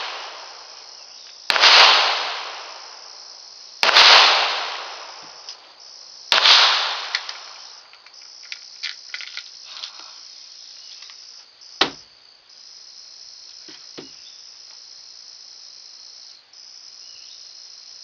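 Three .22 pistol shots about two and a half seconds apart, each sharp and loud with a long echoing tail, then the shooting stops. Later come two small metallic clicks from the pistol being handled, over steady insect chirring.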